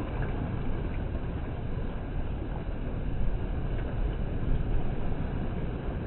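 Sea surf washing in among rocks and concrete breakwater blocks: a steady, deep rumble of churning water, swelling slightly about three seconds in and again a little later.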